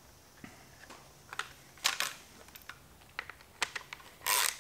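Scattered small clicks and ticks from handling a removed plastic motorcycle license-plate bracket and its wiring with the fingers and a small tool, then a louder scraping rustle near the end.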